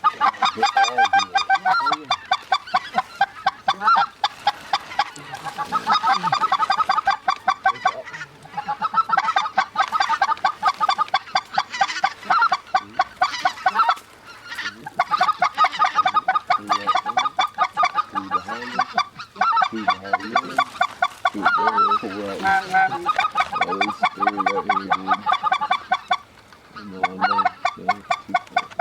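Goose calling: a fast, steady run of short honks and clucks, several a second, with a few brief pauses.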